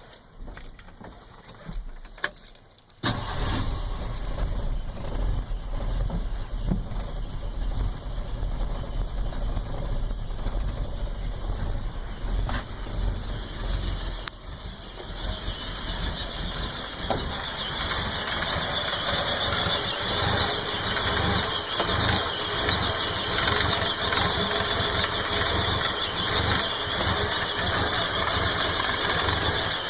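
Ford 300 cubic-inch (4.9L) inline-six starting about three seconds in, then running at a rough idle, getting louder from about halfway. The rough idle comes from a carburetor fault: something in the carb broke or failed.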